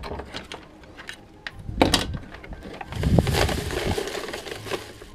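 Handling of salvaged wiring: a few knocks of wires and plastic fittings, then a plastic bag rustling and crackling from about three seconds in as the wires are stuffed into it.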